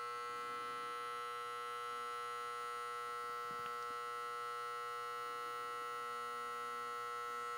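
Vintage Wahl electric hair clipper with a magnetic (vibrator) motor, about 100 years old, running at a steady buzz made of many even tones. Its blade runs at about 7,200 strokes a minute.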